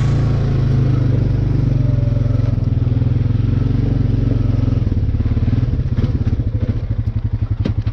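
Honda Rancher 420 ATV's single-cylinder engine putting along steadily in first gear. About five seconds in, the engine note drops to a slower, even beat of separate firing pulses as the throttle eases off.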